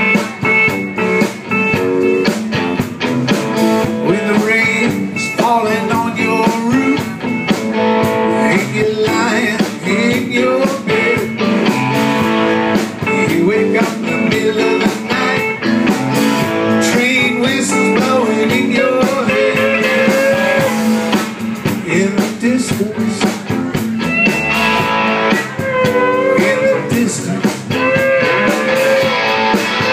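Live blues band playing an instrumental stretch led by guitar, with pitch-bent melody lines over a steady rhythm.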